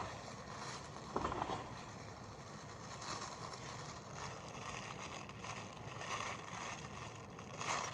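Quiet handling sounds: packaging rustling and a few small knocks as bandsaw parts are taken out of the box.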